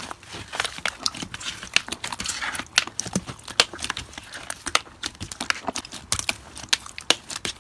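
Slime being worked by hand, making irregular sharp clicks and pops, several a second.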